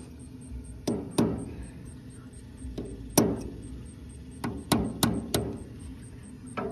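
Light hammer taps on a small steel punch driven into the drilled-out remains of a broken 7/16 exhaust manifold stud in a Ford 8N's cast-iron cylinder head, about nine metallic taps in irregular groups of two to four. The taps are breaking the last threads of the stud out of the hole.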